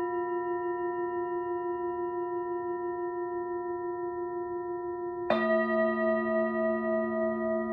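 Singing bowls ringing in long sustained tones with a slow wavering pulse. About five seconds in, another bowl is struck with a sharp attack, adding a lower tone, and the tones ring on together.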